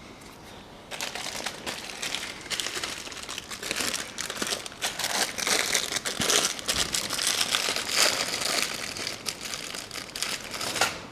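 Thin plastic packet of piston rings crinkling and rustling as it is handled by hand, starting about a second in.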